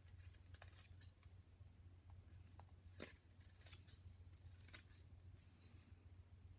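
Whittling knife paring thin chips from a small wooden figure: faint, short crisp slicing clicks at irregular intervals, the sharpest about three seconds in.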